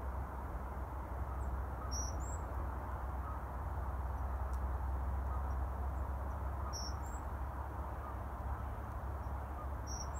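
Three short, high bird calls a few seconds apart over a steady low background rumble.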